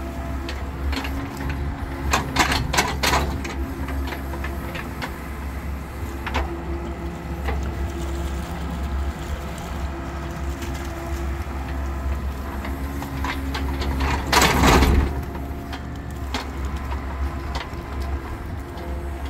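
Crawler excavator running steadily with a low engine hum and a steady whine while its bucket digs wet soil out of a drainage trench. Several clanks and knocks come about two to three seconds in, and a louder rush of noise about fifteen seconds in.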